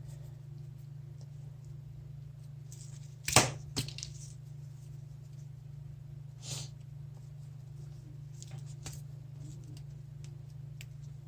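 Handling noise from a braided HDMI cable: one sharp click a little over three seconds in, then a few fainter taps and rustles, over a steady low hum.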